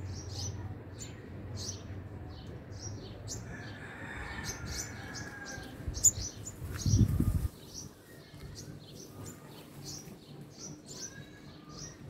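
Sunbird calling: a run of short, high, sharp chirps, two or three a second. About six seconds in, a sharp click and then a brief low rumble are the loudest sounds.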